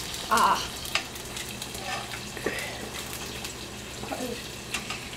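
Eggs frying in oil in a hot skillet with a steady sizzle, while a utensil stirs them and clicks against the pan now and then. A short exclamation, "ah", about half a second in.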